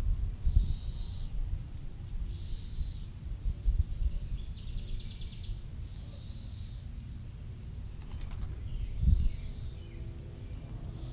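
Small birds chirping in short bursts every second or two, over a steady low rumble that swells about nine seconds in.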